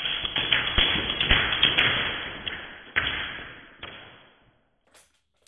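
Full-auto burst from an airsoft gun, the BBs hitting the clear plastic waterproof camera case and the cardboard behind it: a dense clatter of sharp hits that thins to a few separate hits and fades out after about four seconds.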